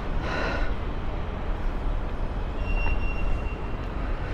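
Steady low rumble of city street traffic, with a faint thin high tone about three seconds in.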